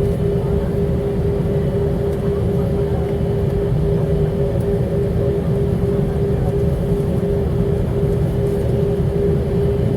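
Airliner jet engines running: a steady low rumble with a constant hum.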